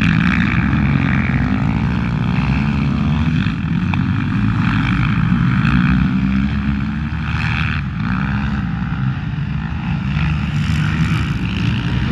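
A pack of racing quads, mostly 450cc four-strokes, running hard round a grass track, engine pitch repeatedly rising and falling as they accelerate and back off through the turns.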